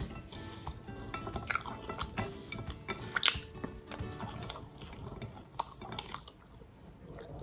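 Close-up chewing and wet mouth noises of someone eating stir-fried chicken chowmein noodles, with sharp clicks, the loudest about 1.5 and 3 seconds in, over soft background music.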